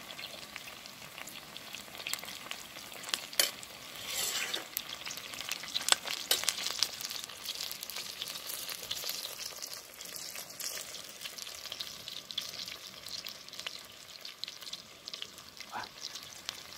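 Chicken curry sizzling in a pot on a small gas canister camping stove: a steady crackling hiss, with a few sharp clicks, the loudest about three and six seconds in.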